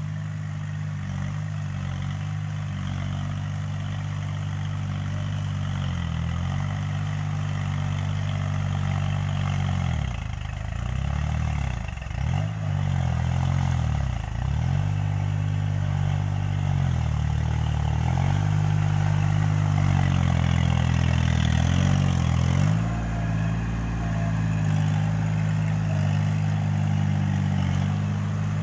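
Kubota farm tractor's diesel engine running under load as it tills a flooded, muddy rice paddy. The engine note dips and recovers several times about a third of the way in, then holds steady and grows a little louder as the tractor comes closer.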